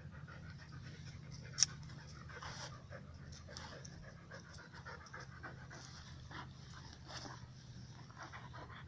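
An Akita panting close by in quick, irregular breaths, with one sharp click about one and a half seconds in.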